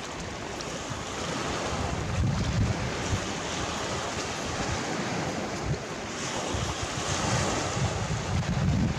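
Small sea waves washing in over rounded stones and boulders on a rocky beach, the surf swelling louder about two seconds in and again near the end. Wind buffets the microphone with a low rumble.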